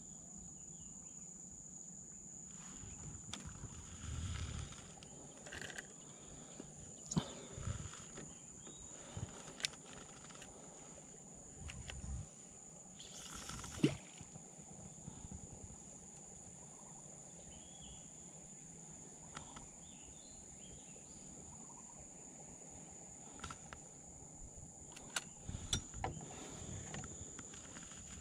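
Insects chirring in a steady high-pitched drone, with scattered short knocks and clicks of handling on top, the sharpest about 7 and 14 seconds in and a cluster near the end.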